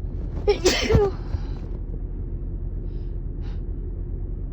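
A woman's short, breathy vocal gasp about half a second in, from a nose tickled by allergies. Two faint sniffs follow around three seconds in, over a steady low hum.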